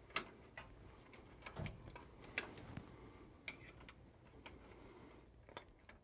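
Faint, irregular clicks and light knocks of a hand working at an electrical receptacle box and its metal bracket on a concrete wall. The few louder clicks come in the first two and a half seconds.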